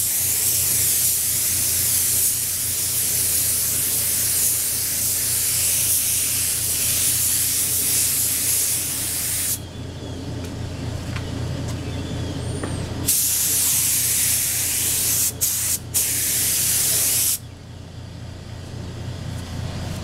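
Gravity-feed compressed-air spray gun laying on a coat of clear. It gives a long steady hiss that cuts off about nine and a half seconds in. After a pause of a few seconds a second pass of about four seconds follows, broken twice by brief stops of the trigger.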